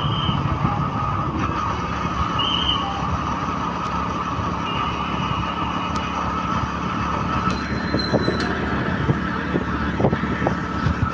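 Steady engine and road noise of a motor vehicle driving along a street, with a few short high beeps over it.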